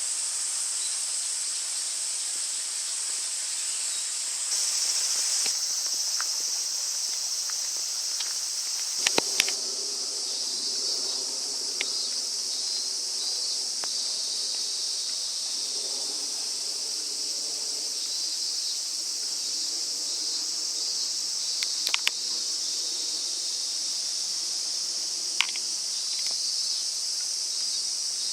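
A steady chorus of insects: a continuous high-pitched buzzing drone, with a few short sharp clicks.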